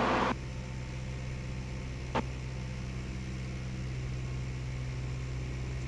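Cessna 172's piston engine and propeller droning steadily at reduced power in slow flight, heard inside the cockpit. A hiss drops away about a third of a second in, and there is a single short click about two seconds in.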